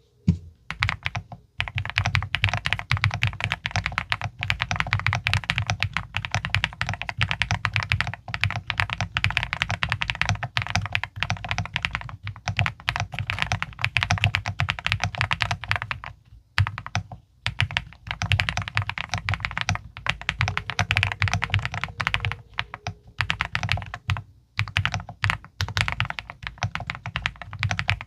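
Fast continuous typing on a Record Alice mechanical keyboard with MMD Princess linear switches: a dense run of deep, thocky keystrokes, broken by a few short pauses.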